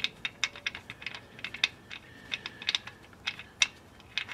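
Irregular light metallic clicks and clinks of hand tools and a bolt being handled, a few with a brief ringing tone.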